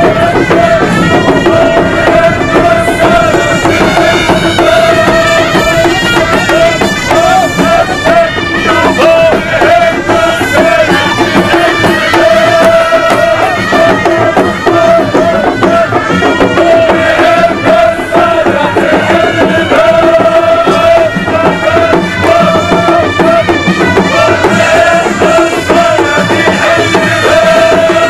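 Traditional Middle Eastern folk music: hand drums playing under a wind instrument that holds a steady, wavering high note.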